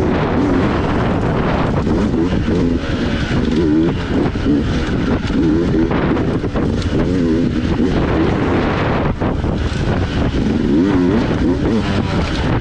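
Dirt bike engine on a trail ride, its revs rising and falling again and again as the throttle is worked, over a steady rough riding noise.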